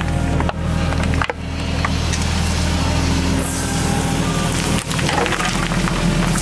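Excavator engine running steadily while the bucket scrapes and knocks through rocky ground, with repeated clattering of stones.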